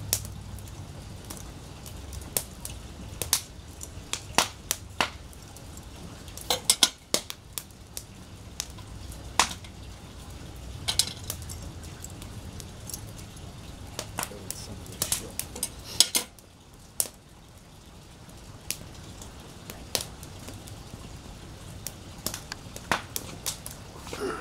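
Irregular sharp clicks and clinks over a low rumble: a metal wing corkscrew and a glass wine bottle being handled as the cork is drawn and worked off, with a wood fire crackling.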